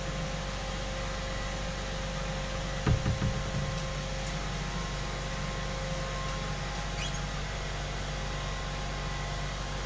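Steady background hum with a few fixed low tones under an even hiss, like an appliance or ventilation running. About three seconds in, a short cluster of low knocks.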